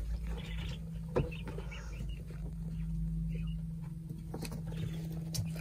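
Quail in a coop: faint, short calls and movement in the litter over a steady low hum, with two sharp knocks, one about a second in and one near the end.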